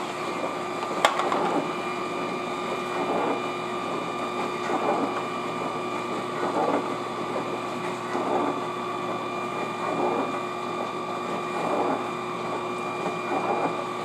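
Frigidaire dishwasher running its cycle: a steady motor hum with a rhythmic swish that swells about every second and a half to two seconds. A single sharp click comes about a second in.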